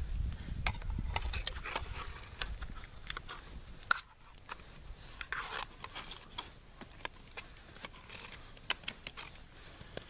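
A knife scraping thick canned porridge out of a tin can into a metal mess tin, with many small clicks and scrapes of the blade against the tin. A low rumble sits under the first few seconds.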